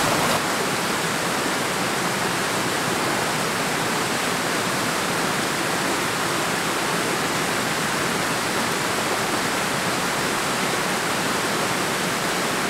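Mountain stream rushing steadily over a small rocky cascade.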